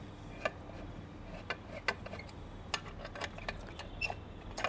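Scattered sharp metallic clicks and taps, about eight of them, as a button head bolt and a T-handle hex key are handled against a metal bash plate, over a low steady background hum.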